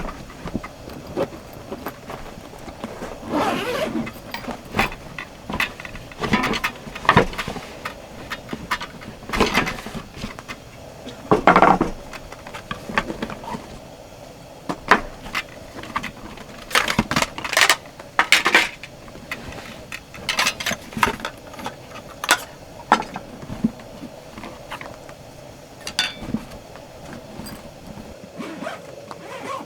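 Irregular clinks, knocks and a few short scrapes of camp cookware and utensils being handled.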